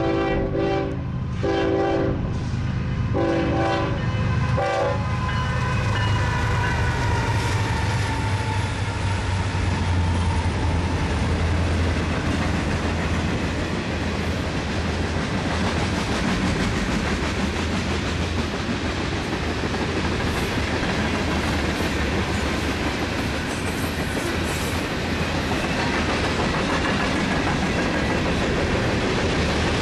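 BNSF manifest freight train passing: the locomotive horn sounds in several blasts over the first few seconds, the diesel locomotives go by with a low engine drone and a falling tone, then the steady rumble and clatter of the freight cars rolling past.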